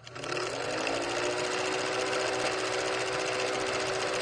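Old film projector running: a fast, steady mechanical clatter with a motor hum that rises in pitch over the first second as it comes up to speed, then holds steady.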